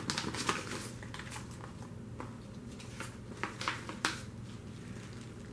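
Sticker sheets being handled and laid down on a table: soft rustles and light taps, several in the first four seconds, over a faint steady hum.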